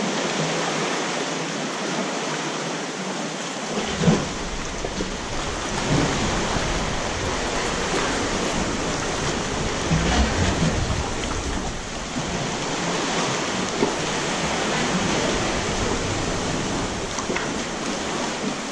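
Steady rush and lapping of sea water around an inflatable kayak, with occasional splashes of the paddle. A low rumble sets in about four seconds in and drops away near the end.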